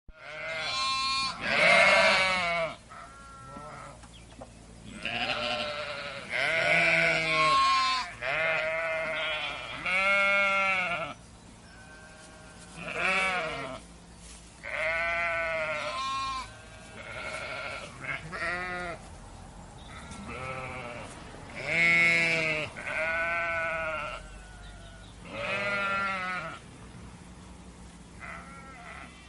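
Bleating livestock: about twenty wavering bleats, one after another with short gaps, at several different pitches and sometimes overlapping, like a number of animals calling.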